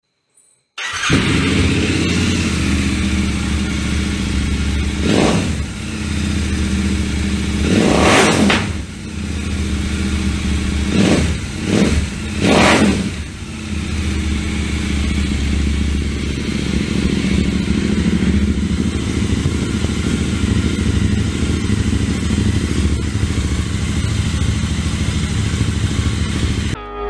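Royal Enfield 650's 648 cc parallel-twin engine breathing through a Motowings (MW) Trident aftermarket exhaust: it starts up about a second in and idles. It is given several sharp throttle blips in the middle, then settles back to a steady idle.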